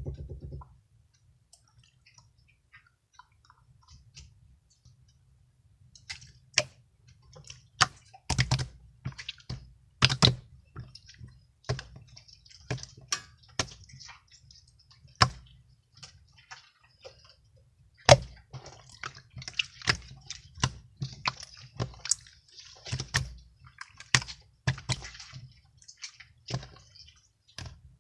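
Irregular sharp clicks and light taps, scattered unevenly and coming thickly from about six seconds in, over a faint low hum.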